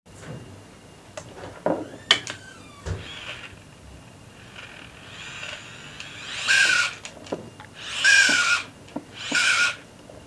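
Electric motor being spun up as a generator in three short bursts, each a high whirring with a whine in it that dies away between bursts. A few sharp clicks and knocks come first.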